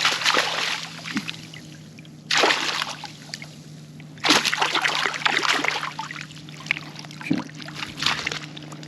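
Water splashing in irregular bursts, about four times, as a hooked trout thrashes at the surface of shallow bay water, under a steady low hum.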